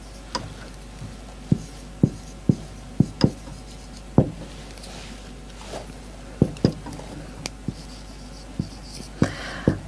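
Marker pen writing on a whiteboard: a string of short, irregular taps as the tip meets the board, and a longer scratchy stroke near the end.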